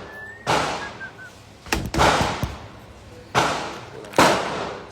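Gunshots at a shooting range: five or six sharp shots at uneven spacing, two of them close together about two seconds in, each with an echoing tail.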